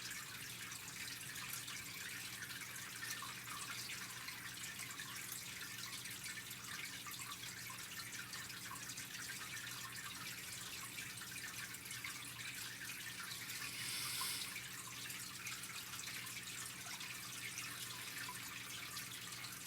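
Steady background hiss with a low electrical hum and a faint crackle: the room tone of a home voice-over setup between spoken lines.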